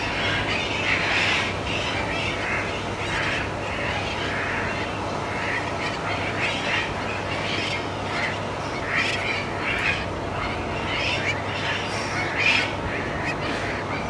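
A sooty tern breeding colony calling, a steady stream of short calls from many birds over an even background hiss and a faint low hum.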